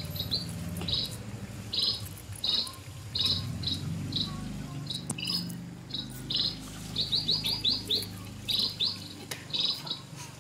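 Repeated short, high-pitched chirps of a forest bird or insect, a couple a second, with a quick run of them about seven seconds in.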